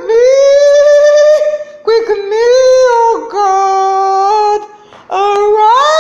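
A woman singing unaccompanied in long, high held notes, in three phrases broken by short breaths; the last note slides upward near the end.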